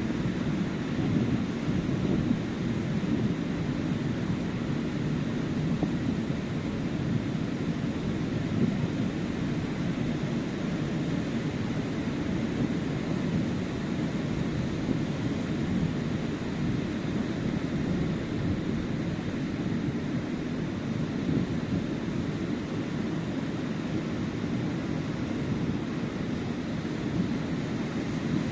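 Sea surf washing onto a sandy beach with wind buffeting the microphone: a steady low rumble with no separate wave crashes standing out.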